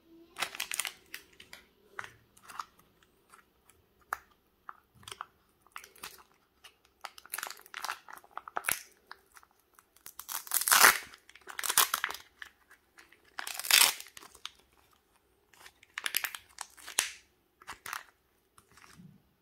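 Thin plastic Kinder Joy egg capsules and their wrappers crinkling and crackling in irregular bursts, with small clicks of plastic between them, as hands handle them.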